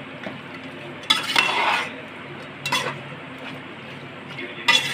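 A spoon stirring and scraping in a pan of chicken drumsticks cooking in gravy, in three separate strokes over a steady low sizzle.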